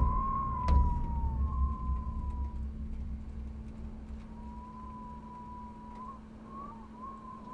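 Abstract sound design: a thin, slightly wavering high tone that sags in pitch, drops out about a second and a half in and comes back wobbling near the end, over a steady low hum. A deep rumble starts with a thump at the outset, swells with a sharp click just under a second in, then fades away over the next few seconds.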